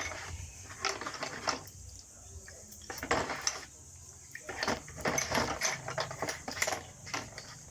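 Small metal parts and tools clinking, scraping and rattling in irregular bursts during hand reassembly of a diesel fuel injection pump.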